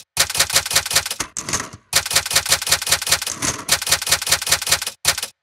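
Manual typewriter keys striking in rapid runs, about eight keystrokes a second, with a few brief pauses between the runs.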